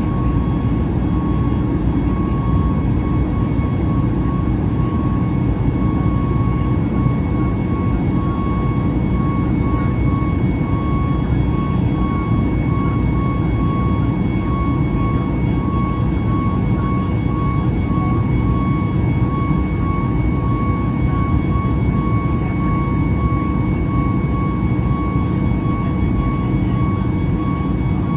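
Steady cabin noise inside a Boeing 737-8 MAX airliner: a low rumble of airflow and its CFM LEAP-1B jet engines, with steady whining tones above it, one faintly pulsing.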